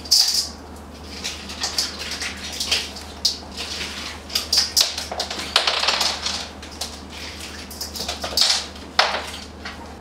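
Hands splashing and sloshing water in a bowl, in irregular bursts with sharp splashes and drips.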